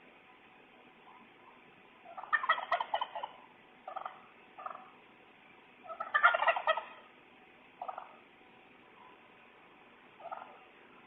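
Animal calls through a doorbell camera's microphone: two bursts of rapid, warbling calls about four seconds apart, with shorter single calls between them and a faint one near the end.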